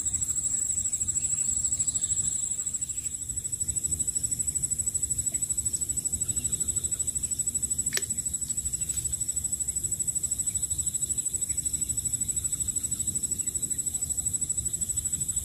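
Steady high-pitched insect trilling with a fine rapid pulse, over a low rumble. A single sharp click about eight seconds in.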